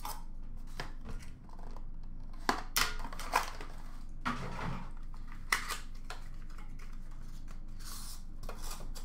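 Scattered short rustles and clicks of trading cards and their packaging being handled, in irregular bursts with a few sharper clicks a few seconds in.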